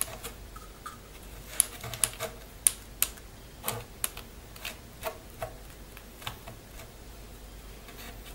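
Irregular sharp taps and clicks, a dozen or so, from splatter painting: a paintbrush loaded with thinned whipped spackle is tapped to flick drops onto cardstock in a cardboard box. The taps thin out and stop about seven seconds in.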